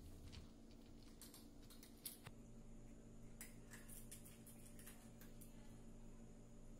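Faint, irregular crunching clicks of a cat chewing dry kibble at its bowl, over a low steady hum.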